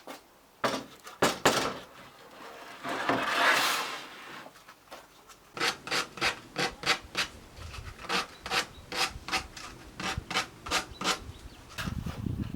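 Wood being worked by hand with an abrasive, rubbed back and forth in quick even strokes of about three a second, after a few knocks and one longer scrape near the start.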